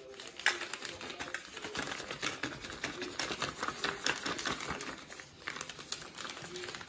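Frosting-filled plastic piping bag crinkling and crackling as it is squeezed and twisted in the hands, a dense irregular run of small crackles.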